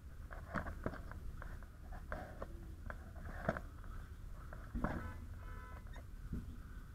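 Scattered light knocks and clicks over a steady low rumble, with a brief electronic beep about five seconds in.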